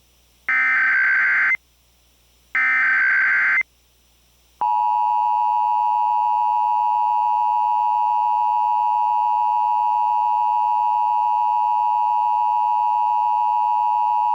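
Emergency Alert System tones: two short bursts of the SAME header data screech, a second apart, then the steady two-tone EAS attention signal held for about ten seconds. These are the tones that open an emergency alert broadcast, here a fire warning.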